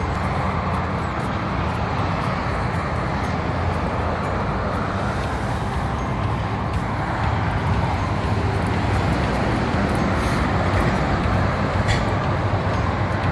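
Motorway traffic: a steady, even rush of passing cars and trucks with no breaks.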